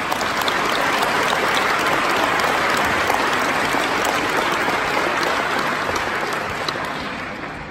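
Audience applauding, building quickly and fading away near the end.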